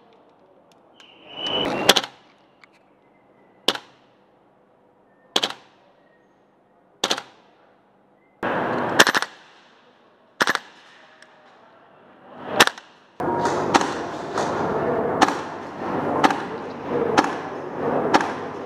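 Gas blowback airsoft rifle, a KWA AKG, firing single shots: sharp cracks one to two seconds apart, coming quicker over a steady background rush from about 13 seconds in.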